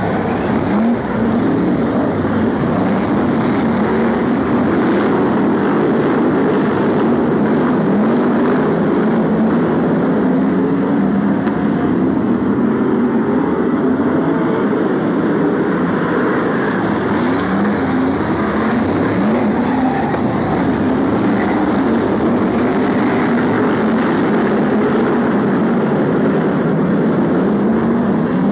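A pack of BriSCA F1 stock cars' V8 engines racing, many engines overlapping, each revving up and down as the cars pass and corner.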